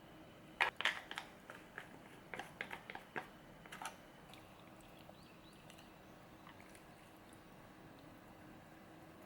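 Meal-table noises: a quick run of short, faint clicks and clinks, as of dishes, cutlery and eating, over the first four seconds, then only faint room tone.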